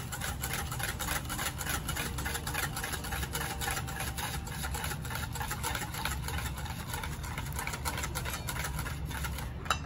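Wire whisk beating quickly against a stainless steel bowl, about four or five strokes a second, mixing warm milk and cream into beaten egg and sugar for a pudding custard base. A low steady hum runs underneath, and there is one sharper clink near the end.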